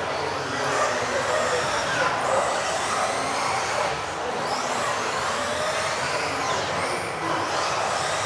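Several RC off-road race buggies with electric motors driving laps together, their motors whining in overlapping pitches that rise and fall as they accelerate and brake.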